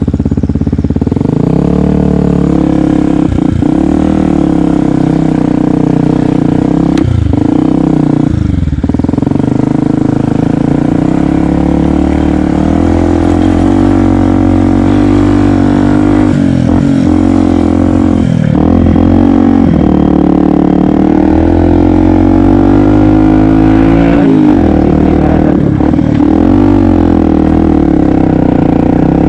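Yamaha WR125X's 125 cc single-cylinder four-stroke engine pulling under way, its pitch dropping and climbing again several times as the throttle is eased and reopened through gear changes.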